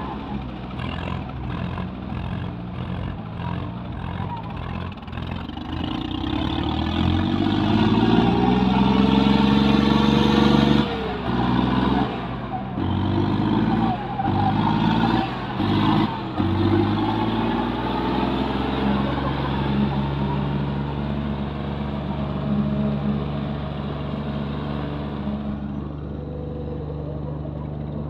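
Diesel tractor engines, a Swaraj 960 FE among them, revving hard under load as two coupled tractors pull against each other in a tug-of-war. The engine pitch climbs for several seconds, drops sharply about eleven seconds in, rises and falls in a few quick throttle bursts, then settles into a steady pull.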